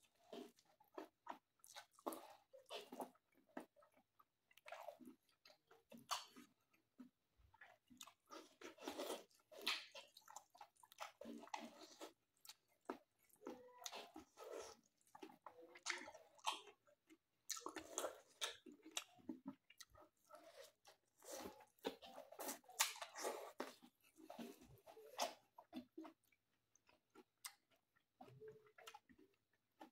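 A person chewing mouthfuls of mutton, rice and greens close to the microphone: irregular bursts of chewing and mouth sounds with short pauses between them.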